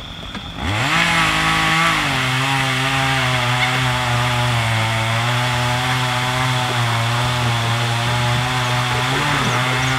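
A small engine starting up about half a second in, rising quickly in pitch, then running steadily and loud at an even pitch, with a brief dip in speed near the end.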